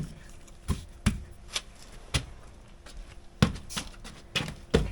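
Irregular knocks and clicks, about eight of them, from parts and tools being handled during the work. The loudest come about three and a half seconds in and again near the end.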